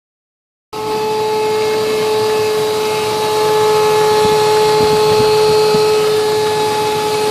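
A car making an odd noise: a loud, steady, unchanging whining tone that starts suddenly a moment in and holds without changing pitch.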